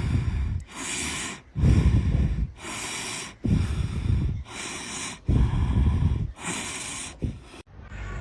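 Snoring breaths in a slow, even rhythm: about four cycles, each a rough low snort followed by a hissing breath. It cuts off suddenly near the end.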